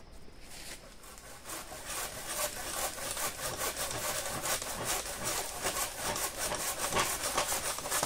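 Hand saw cutting through wood with quick, even back-and-forth strokes, about four a second, starting about a second in.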